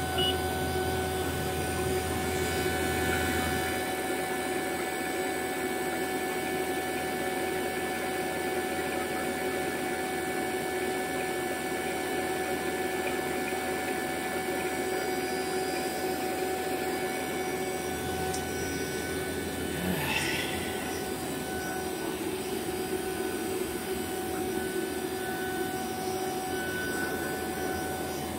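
Fieldpiece VP85 two-stage vacuum pump running steadily, pulling a deep vacuum of about 350 microns on an empty refrigerant recovery tank. One short knock about two-thirds of the way through.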